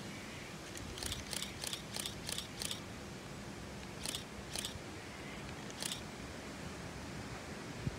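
A run of six short, sharp high-pitched clicks, about three a second, then two more a little later and one more near the end, over a steady background hiss.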